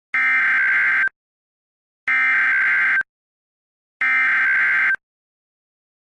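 Emergency Alert System SAME header: three bursts of digital data tones, each about a second long and about two seconds apart. They carry the coded header that opens an emergency alert broadcast.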